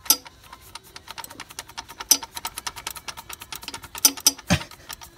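Socket ratchet clicking in quick, uneven runs as the lift pump's 10 mm mounting bolts are loosened, with a dull thump about four and a half seconds in.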